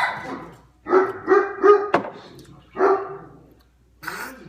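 A dog barking repeatedly, about five or six short barks.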